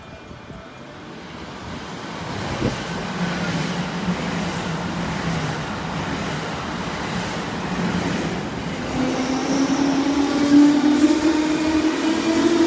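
JR West 321 series electric train running through a station, building up to a steady rush with wheels clacking in a regular rhythm over the rail joints. Later a rising motor whine comes in as a JR 201 series electric train pulls away.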